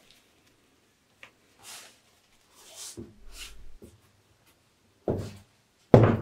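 Soft rustling and shuffling, then about five seconds in two loud, sharp knocks under a second apart, the start of an evenly spaced series of knocks.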